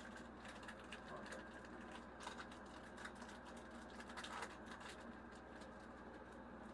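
Faint crinkling and rustling of a foil Pokémon booster pack being worked open and handled, in scattered soft crackles and clicks.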